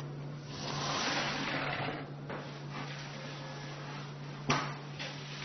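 Hands and tools scraping and rubbing on honeycomb cardboard in stretches, with a sharp tap about four and a half seconds in and a steady low hum underneath.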